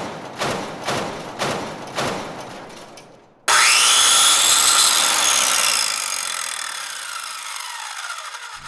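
About five strokes of a saw cutting wood, each fading, roughly two a second. Then a power tool starts suddenly, and its motor's pitch climbs quickly before sinking slowly as it winds down.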